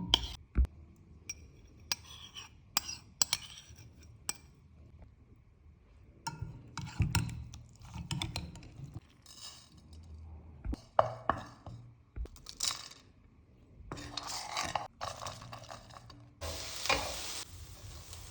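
Kitchen clatter: utensils and dishes clinking, knocking and scraping in short bursts. Near the end a steady sizzle starts suddenly, as food goes into a hot pan.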